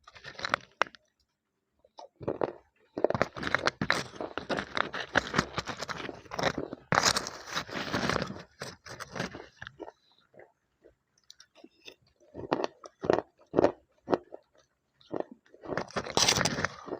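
Slate pencil being bitten and chewed close to the microphone: dense, crackly crunching. There is a long run of crunching, a short pause, then several more bites near the end.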